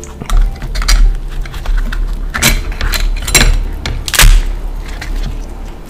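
Cooked king crab shell cracking and snapping as it is broken apart by hand. There are several sharp cracks over a few seconds, the loudest about four seconds in, over dull handling bumps.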